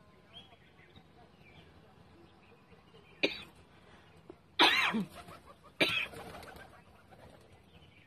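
Feral pigeons' wings flapping in three loud, sudden bursts: a short one just after three seconds in, the loudest at about four and a half seconds, and another near six seconds.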